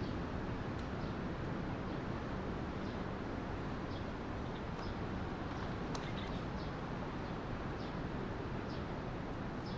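Outdoor background ambience: a steady rushing noise with scattered faint high chirps of small birds, and a single sharp click about six seconds in.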